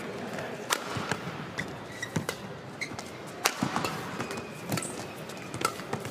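Badminton rally: sharp racket-on-shuttlecock hits about every second, with players' shoes squeaking and thudding on the court mat, heard in a large hall.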